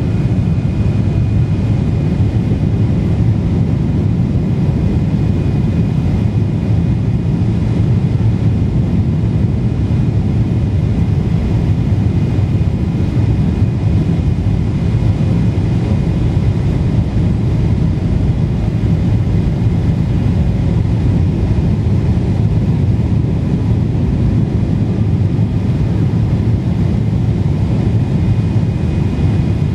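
Steady low cabin roar of a Boeing 777-300ER on final approach with flaps extended: its GE90 turbofan engines and rushing airflow heard through the cabin wall, with a faint steady high whine over it.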